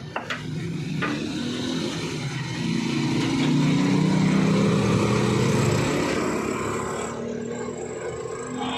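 A small engine or motor hums, growing louder to a peak in the middle and then easing off. A few sharp metallic clinks come right at the start.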